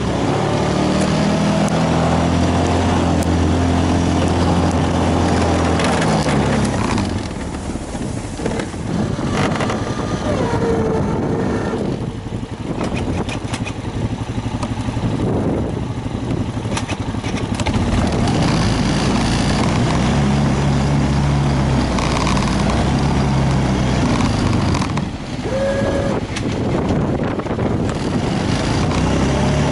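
A motor engine running, its pitch stepping up and down a few times, with a noisy rush behind it.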